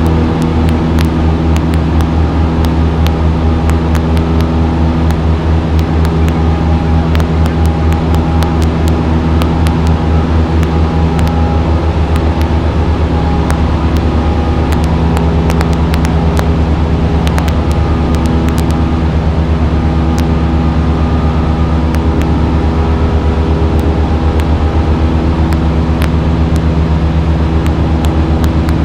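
Single-engine piston light aircraft's engine and propeller droning steadily at climb power, heard from inside the cockpit.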